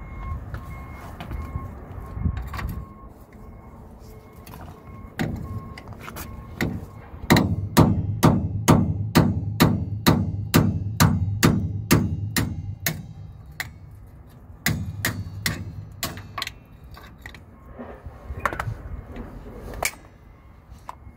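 Hammer blows driving the broken top of a suspension bolt out of its mount from below, metal striking metal. A few separate strikes, then a fast steady run of about three blows a second for several seconds, then more scattered strikes.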